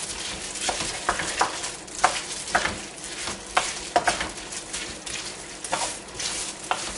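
Wooden spoon stirring raw long-grain rice through a frying chicken, sausage, tomato and capsicum mixture in a steel pan, coating the rice in the juices. A steady frying hiss runs under irregular scrapes and knocks of the spoon against the pan.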